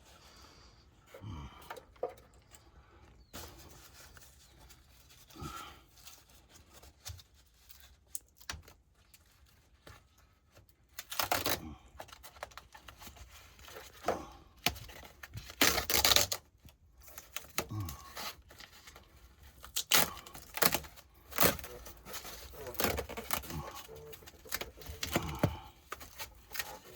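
Irregular tearing, crinkling and scraping as deteriorated pipe insulation on water heater pipes is handled and pulled away. The noises come in short bursts, sparse at first and busier and louder in the second half.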